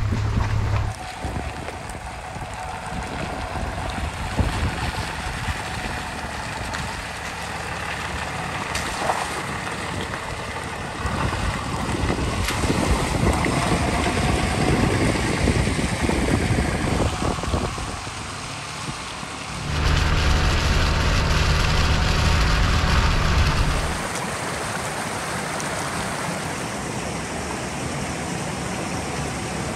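Pickup truck driving on a wet gravel road, its tyres rolling and splashing through puddles, with the engine running underneath. About two-thirds of the way in, a stretch of louder, steady low engine drone lasts a few seconds.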